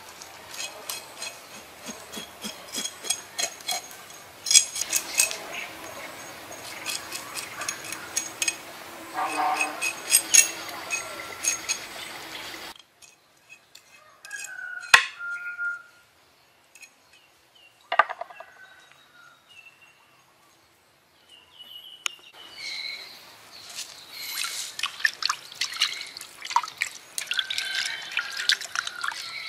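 A knife scraping and cutting a raw fish on a wooden chopping board in quick, clicking strokes. About halfway through, a quieter stretch with a couple of sharp knocks. From about two-thirds in, wet sloshing and splashing as the fish is rubbed and washed by hand in a bowl of water.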